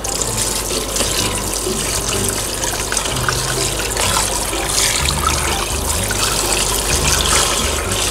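Kitchen tap running in a steady stream into a plastic tub in a stainless steel sink, splashing as hands rinse and rub squid under the water.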